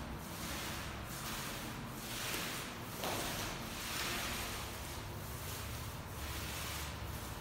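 Varnish applicator pad rubbing across a herringbone wooden parquet floor, in repeated swishing strokes that rise and fall about once a second or two.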